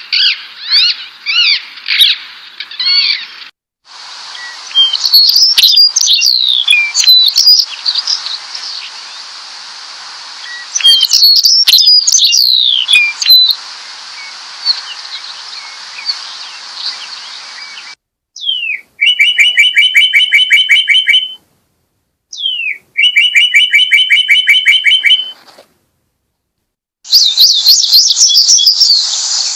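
Songbirds chirping and calling in a series of abruptly cut recordings. Midway, one bird sings the same song twice, a quick downward note followed by a fast, even trill lasting about three seconds, with a brief silence between the two.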